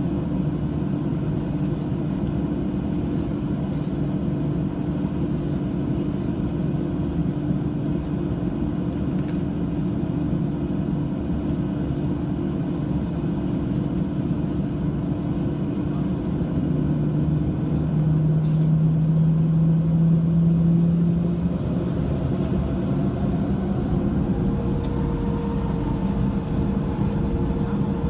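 Cabin sound of a Boeing 737-800 with its CFM56 jet engines running at low power: a steady rumble and hum. In the last few seconds a whine rises in pitch as the engines begin to spool up for takeoff.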